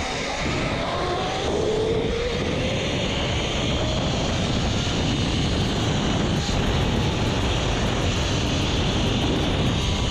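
Zipline trolley running fast down the steel cable, a steady rushing whir with heavy wind noise that grows louder over the first two seconds as the rider picks up speed.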